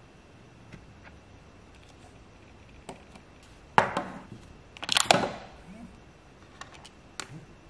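Handling noise of a hard plastic RC transmitter and the small RC car being picked up, set down and turned over in the hands: a few faint clicks, a sharp knock about four seconds in, a cluster of louder knocks and rattles about a second later, and a couple of small clicks near the end.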